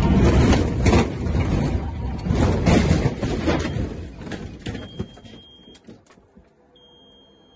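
Inside a Cessna's cabin during a landing crash: loud rumbling and rattling with a string of jolts and thuds as the plane runs off the runway into the grass. It dies away over about two seconds as the plane comes to a stop. Two short, high electronic beeps follow in the quiet.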